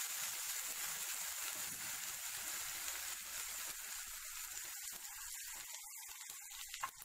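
Chutney paste sizzling in the hot oil of a tempering in a frying pan as it is stirred in, a steady hiss that gradually fades. A single sharp click near the end.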